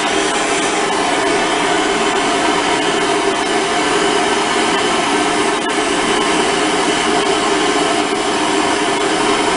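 Handheld gas torch burning with a steady hiss, its flame heating copper pipe fittings for soldering.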